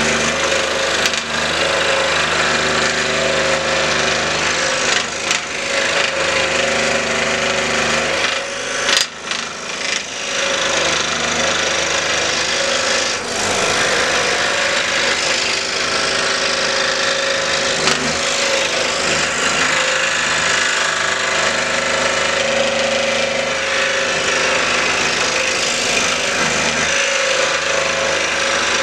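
Scroll saw running steadily, its reciprocating blade cutting through a small elm block over a constant motor hum; the sound drops briefly about nine seconds in.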